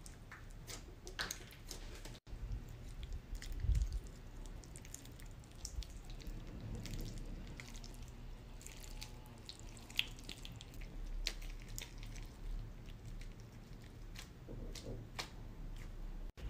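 Slime being pressed, stretched and squeezed by hand, giving sticky clicks, small wet pops and crackles scattered throughout, with a low thump about four seconds in.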